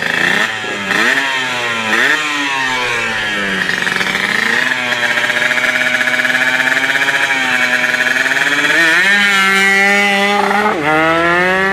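Kawasaki Ninja drag bike engine revving hard: the pitch climbs and drops back a few times at the start, then holds high and steady for several seconds, rising again near the end with one brief dip.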